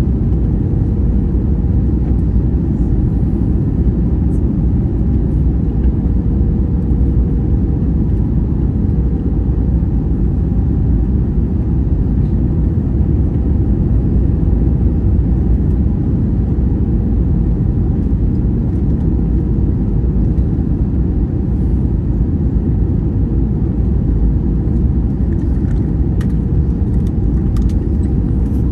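Steady cabin noise inside an Airbus A321neo on approach: the low rush of airflow and its Pratt & Whitney PW1100G geared turbofan engines, with a steady hum running over the rumble.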